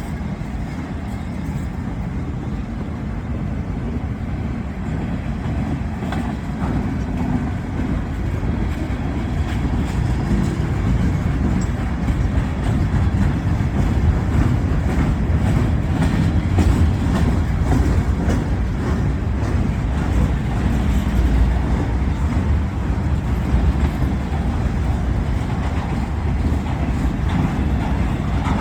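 CSX work train's freight cars rolling past, wheels clicking over the rail joints above a steady low rumble that grows somewhat louder midway.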